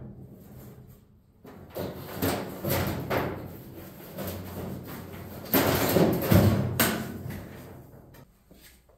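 Irregular clanks, thumps and scraping of sheet metal as the body of a 1953 Chevy pickup cab is handled and worked on, loudest a little past the middle.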